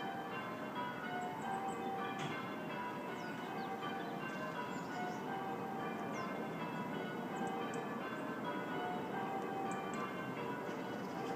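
Church bells ringing continuously, one strike after another overlapping as each bell hums on. Songbirds chirp and whistle faintly over them several times.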